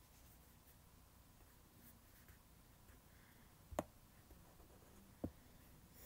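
Near silence: quiet room tone in a small room, broken by two short clicks about a second and a half apart, in the second half.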